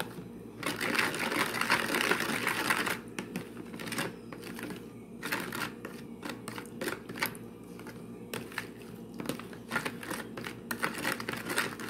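A spoon stirring a thin liquid sauce in a bowl, scraping and clinking against the sides: a dense run of quick clicks for about the first three seconds, then scattered single clicks.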